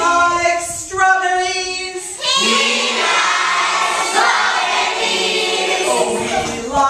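A group of children singing and chanting together, with a burst of loud mixed shouting and singing from many voices about two seconds in.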